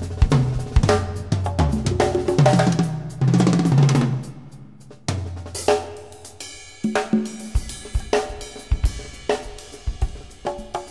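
Instrumental music with a drum kit playing a beat of snare, kick and cymbal hits over a deep bass line and sustained tones.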